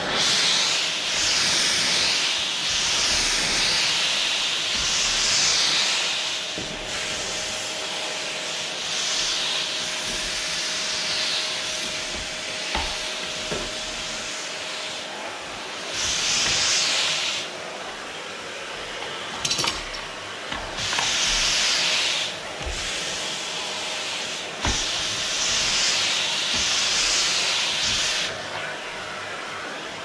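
Canister vacuum cleaner running, its suction hiss swelling and easing several times as the floor nozzle is pushed over a wooden floor, with a few light knocks.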